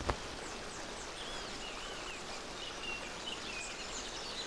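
Forest ambience: a steady hiss of background noise with several birds calling in short, looping high whistled notes. A single sharp knock comes right at the start.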